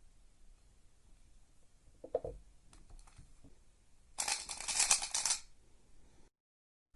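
Plastic 3x3 speedcube being handled and turned: a few scattered clicks, then about a second of fast turning, a dense rattle of clicking layers.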